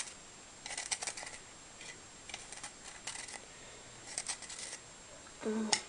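Scratchy rustling and scraping of paper worked by hand while making a homemade sulfur firework fuse, in three short bursts.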